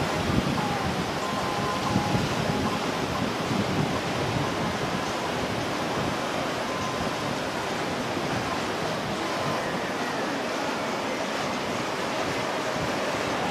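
Steady rush of churning water from a sport yacht's hull and wake, a little choppier in the first few seconds.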